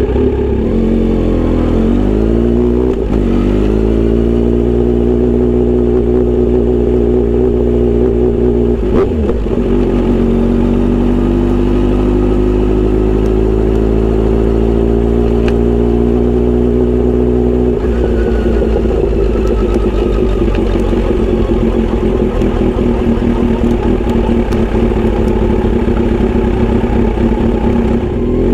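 Kawasaki Z900RS inline-four running through a Misty Kintaro short-pipe exhaust with L silencer, under way on the road. The engine note dips and climbs again in the first few seconds, breaks about nine seconds in, rises slowly, then drops away abruptly about eighteen seconds in as the throttle or gear changes.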